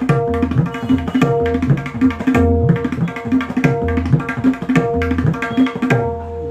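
Tabla solo on a 6-inch dayan and its bayan: fast right-hand strokes ring on the dayan while left-hand bass strokes on the bayan glide up in pitch, in a steady driving rhythm.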